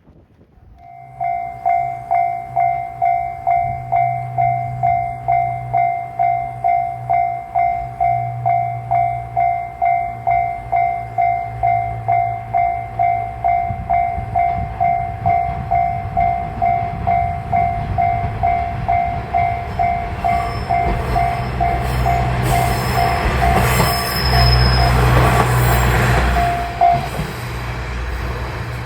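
A railway level-crossing alarm rings a steady, evenly repeated bell tone while a JR Shikoku KiHa 40/47 diesel railcar approaches with a low engine rumble and passes, loudest near the end. The bell stops shortly before the end as the train goes by.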